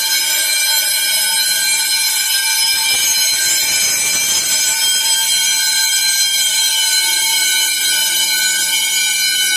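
Apartment building fire alarm ringing loudly and without a break: a false alarm, set off by someone sawing wood inside an apartment.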